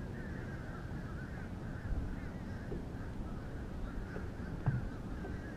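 A continuous chatter of many bird calls, possibly waterfowl, over a low rumble.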